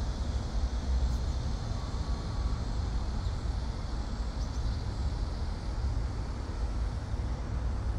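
Steady outdoor city ambience: an even low rumble with a faint hiss above it, of the kind made by distant traffic and light wind on the microphone.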